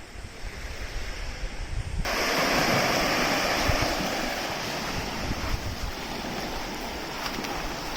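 Sea surf rushing, with wind buffeting the microphone; a louder rush of waves sets in suddenly about two seconds in and eases off slowly.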